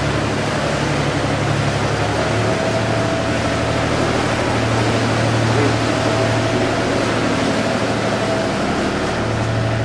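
Canal tour boat's motor running steadily, a low drone with a faint higher whine, its pitch shifting slightly about two seconds in.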